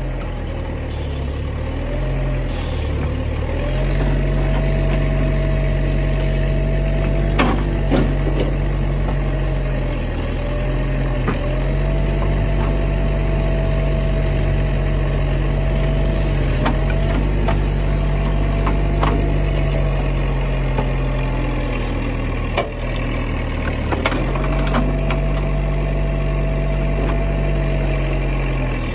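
Bobcat digger's diesel engine running, with a steady hydraulic whine coming in for several seconds at a time as the digging bucket is worked, and a few sharp knocks as the bucket strikes soil and stump roots.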